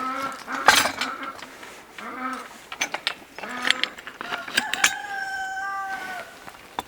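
Farm animals calling: a run of short, repeated pitched calls, then one long steady call about five seconds in, with a few sharp knocks among them.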